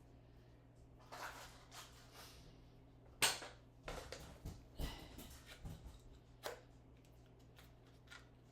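Scattered light clicks, knocks and rustling, as of objects being handled, over a low steady hum; the sharpest knock comes about three seconds in.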